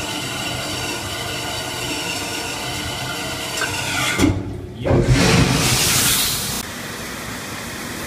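Crate-washing machine running after restart, a steady hum with water churning into its tank, where the float switch now floats freely. About five seconds in a loud hiss starts, lasts a second and a half, and cuts off abruptly.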